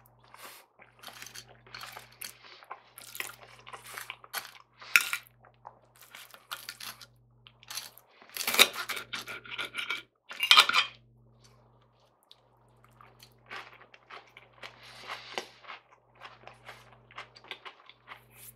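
Metal knife and fork scraping and clinking against a ceramic plate while cutting up a fried breakfast, in irregular short strokes, with a few louder scrapes in the middle.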